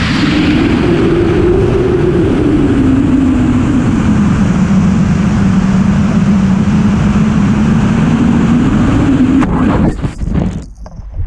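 Onboard sound of a model rocket in flight: a loud, steady rush of air over the rocket-mounted GoPro with a humming tone that sinks in pitch over the first few seconds and then holds low. About ten seconds in it breaks up into a few sharp bangs and uneven gusts of wind on the microphone.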